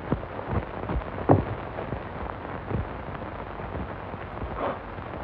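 Hiss and crackle of an old film soundtrack: a steady noise with scattered small pops and clicks, one sharper pop about a second in.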